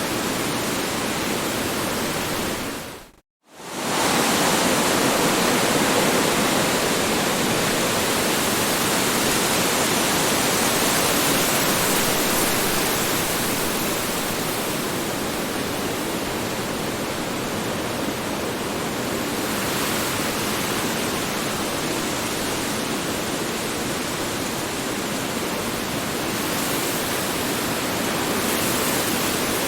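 Strong wind blowing, a steady dense rushing noise. About three seconds in it fades out to silence for a moment and quickly comes back.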